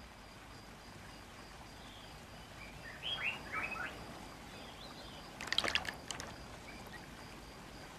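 Black eagle bathing in a shallow stream: a short bout of splashing about five and a half seconds in, the loudest sound, over the faint steady wash of the stream. Small birds chirp a few times about three seconds in.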